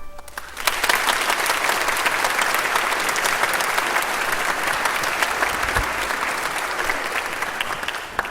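Audience applauding, starting about half a second in as the music ends and tapering off near the end.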